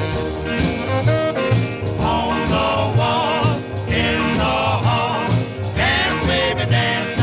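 Music: a song with a singing voice over a steady, rhythmic bass beat.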